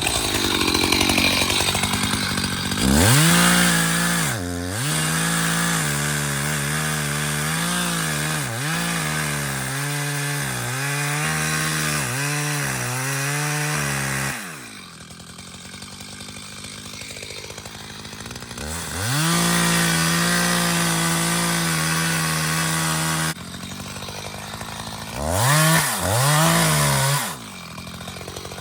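Two-stroke chainsaw run at full throttle, its pitch dipping repeatedly as the chain bogs in the wood while cutting. It drops back to idle about halfway through, then makes a second full-throttle run and two short revs near the end.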